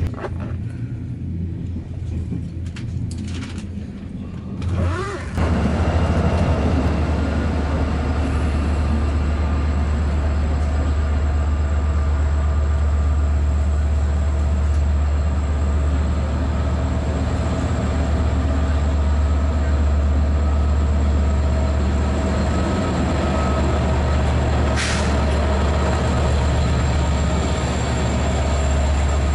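A diesel locomotive runs with a loud, steady low drone as a double-deck passenger train moves slowly along the platform, with a short hiss about 25 seconds in. The first few seconds are the quieter rumble of riding inside the train.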